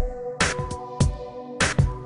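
Background music: an electronic track with a steady beat of drum hits under held tones.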